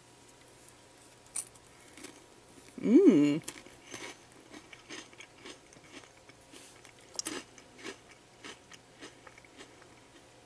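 Crisp Meiji Yan Yan biscuit stick being bitten and chewed, with scattered small crunches. About three seconds in comes a brief, loud vocal sound that rises and then falls in pitch.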